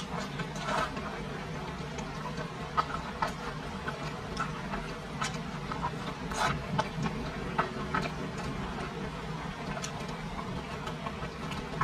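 Close-up mouth sounds of eating braised pork: irregular wet smacks and chewing clicks as pieces are bitten from chopsticks, over a steady low hum.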